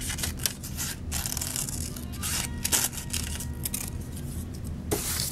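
Scissors cutting paper in a run of quick, irregular snips.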